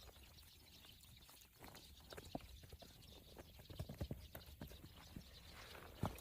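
Faint, irregular taps and knocks from hand work on a wooden hatch as wet mud is packed onto it, starting about a second and a half in.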